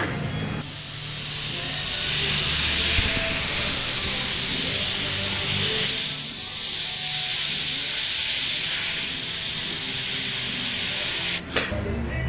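Airbrush spraying paint: a steady hiss that starts just under a second in and cuts off sharply near the end.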